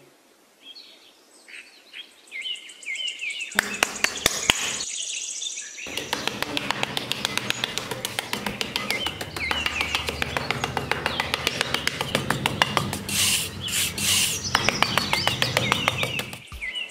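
Birds chirping, then a small trowel scraping and digging through sand in rapid gritty strokes, with chirps continuing over it.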